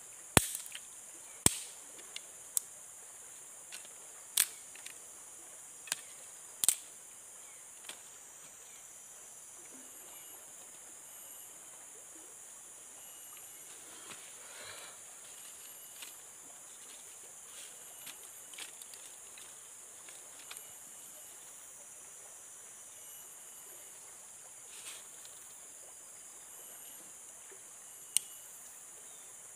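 Sharp snaps or knocks, about eight in the first eight seconds and then a few scattered fainter ones, over a steady high-pitched insect drone.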